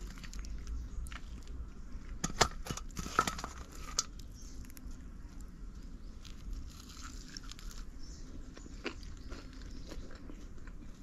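Close-up crunching and chewing as a crisp, Lay's-coated fried chicken drumstick is bitten and eaten, with a run of loud crunches about two to four seconds in and softer ones after.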